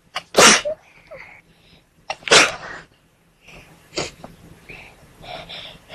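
A person sneezing twice, about two seconds apart, each sneeze preceded by a quick intake of breath. A weaker burst follows about four seconds in, then softer breathing.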